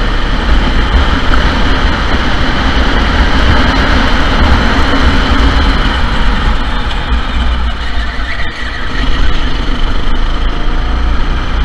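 Go-kart engines running on a kart circuit: a loud, continuous mechanical drone with a heavy low rumble, dipping briefly a little after two-thirds of the way through.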